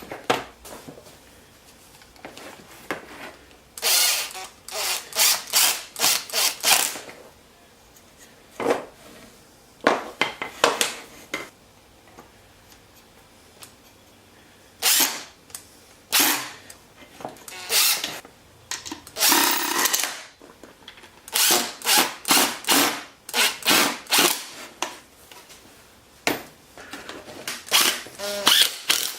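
Power drill run in short bursts of trigger pulls, in clusters with pauses between, with one longer run of about a second around two-thirds of the way through.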